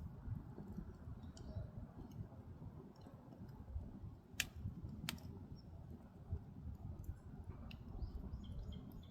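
Firewood burning in a Korean agungi firebox: light, scattered crackling over a low steady rumble, with two sharp pops less than a second apart about halfway through.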